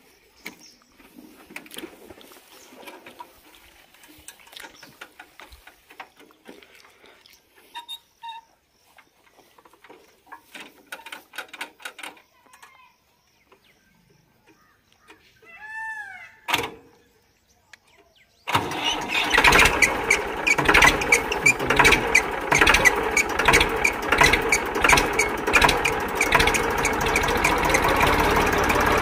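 A Massey Ferguson 1035 DI three-cylinder diesel tractor engine, unused for over a month, fires on the first crank of the starter about two-thirds of the way in and then runs loudly with a steady diesel knock; before that there are only faint clicks and handling noises.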